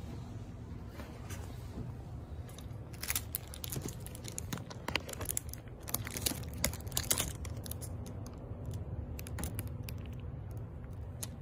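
Scattered light clicks and rustles of handling, loudest about six to seven seconds in, over a steady low hum.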